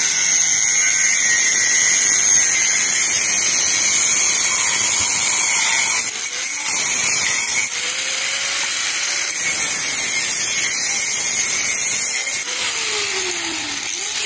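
Electric angle grinder running with its abrasive disc grinding a stainless steel pipe elbow: a continuous high-pitched whine with gritty metal grinding noise, dipping briefly in level a few times.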